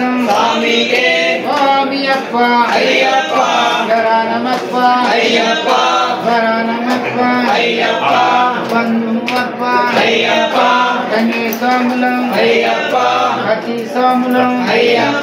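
A group of voices singing an Ayyappa devotional song together, with long held notes.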